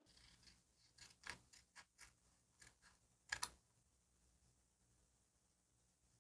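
Quiet stationery handling during diary decorating: a string of small sharp clicks and taps, the loudest a double click about three and a half seconds in, then only faint hiss.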